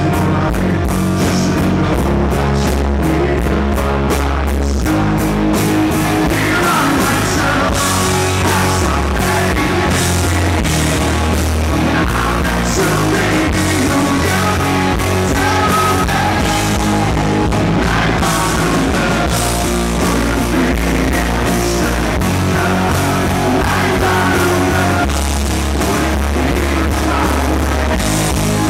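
Live rock band playing: a male lead singer over electric guitars and drums, loud and continuous.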